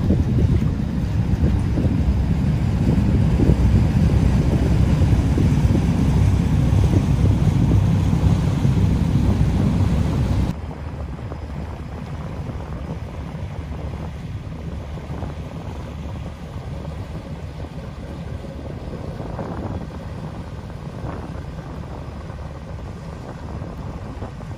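Inland motor cargo ship's engine and propeller wash rumbling loudly as the stern passes close by, with wind on the microphone. About ten seconds in the sound drops suddenly to a quieter, more distant engine rumble with wind.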